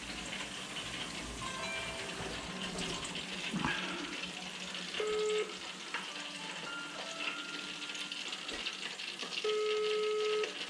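Chicken deep-frying in an electric fryer, the oil sizzling steadily, with faint music in the background.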